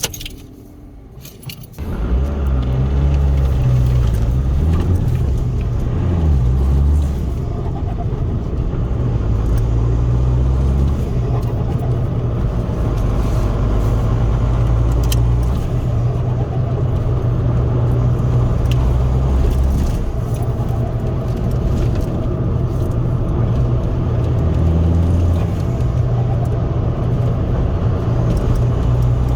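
Ford Focus 1.8 TDCi four-cylinder turbodiesel heard from inside the cabin while driving, with road noise underneath. The engine comes in strongly about two seconds in after a brief quieter moment, and its low drone changes pitch several times as the revs rise and fall.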